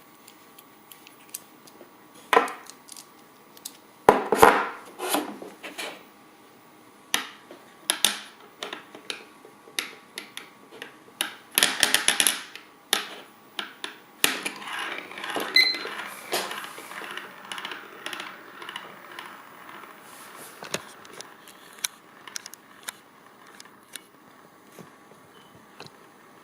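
Small steel spinning top spinning on a hard surface, with irregular clicks and rattles, a denser stretch of rattling about halfway through, then thinning out near the end.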